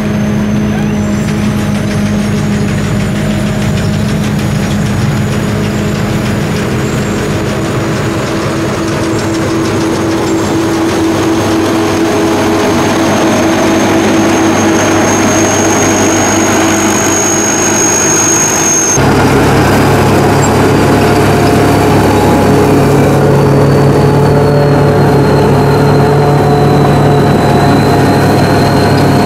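Sakpattana SS-200 mini combine harvester running steadily under load, its engine and threshing machinery giving a continuous drone with a thin high whine on top. About two-thirds of the way through the sound changes abruptly to a deeper, louder running note.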